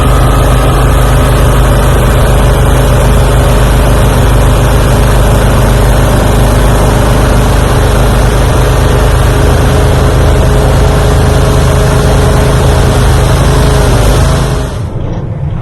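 Farm harvest machinery engine running steadily at high speed, a loud, even drone; it cuts off abruptly about a second before the end.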